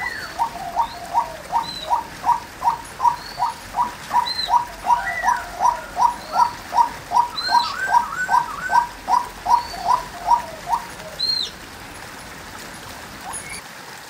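Female white-breasted waterhen calling: a long run of short, evenly repeated notes, about two a second, that stops about eleven seconds in. Other small birds chirp faintly and high above it.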